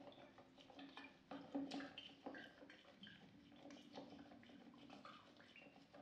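Resin-printed parts and washing liquid sloshing and rattling inside a lidded plastic food container as it is shaken by hand: a string of faint, irregular clicks and knocks.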